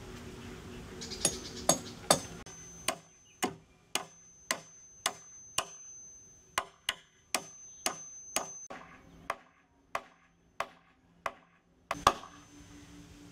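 A hammer knocking on wooden poles at a steady pace of about two blows a second. The blows begin about a second in, and one louder blow lands near the end.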